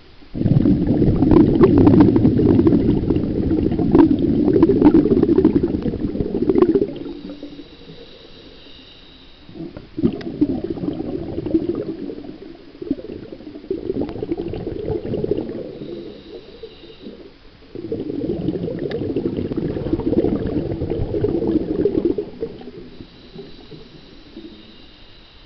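Muffled water sloshing and rumbling right at a hand-held camera in a swimmer's hand. It comes in stretches of a few seconds with quieter gaps between.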